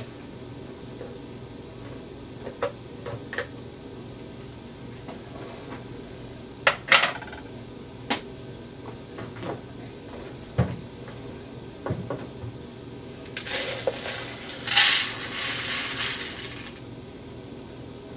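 Clicks and knocks of a glass rice jar and its lid being handled and opened. Near the end comes a rush of about three seconds as dry Arborio rice is poured from the glass jar into a paper bowl.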